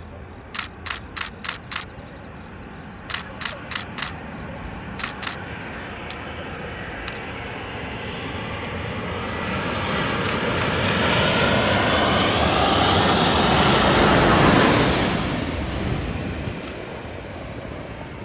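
Jet airliner's engines on landing approach, passing low overhead: the roar builds over about eight seconds to a peak as it goes over, then fades as it descends to the runway. Short runs of sharp high chirps sound in the first few seconds.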